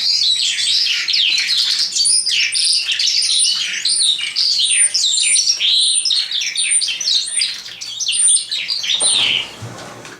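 Caged common nightingale and Eurasian skylark singing together: a dense, continuous run of warbling and trilling phrases, laced with a short high note repeated about twice a second. About nine seconds in there is a brief rustle, and the song breaks off near the end.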